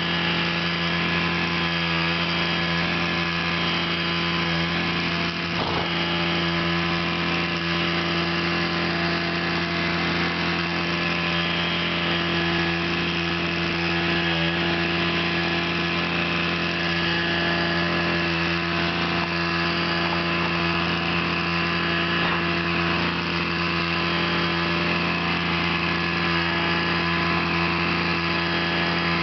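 A steady machine hum at one unchanging pitch, like a motor running continuously.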